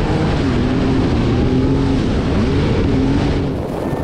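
Jet ski engine running under throttle, its whine wavering, dipping and rising again about two and a half seconds in, over heavy wind rush on the microphone. The sound changes abruptly shortly before the end.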